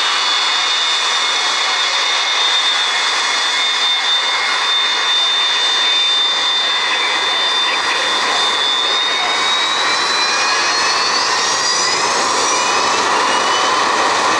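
Aircraft turbine engines running with a steady high-pitched whine over a rushing noise. From about two-thirds of the way through, the whine climbs in pitch as the engines spool up.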